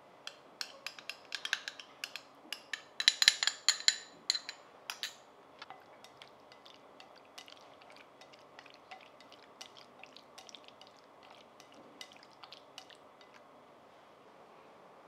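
A utensil clinking against a glass bowl as sliced raw bonito is mixed with sauce: a quick run of sharp, ringing clinks, loudest about three to four seconds in. After that come lighter, softer taps of wooden chopsticks in the bowl, which die away near the end.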